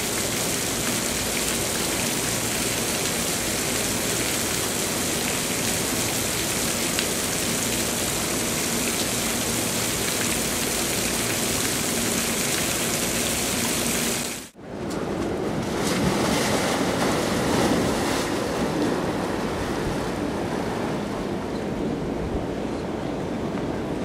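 Rushing water: a steady hiss of fountain jets spraying, cut off suddenly about halfway. Then lower sloshing and splashing of pool water as an Asian elephant swims.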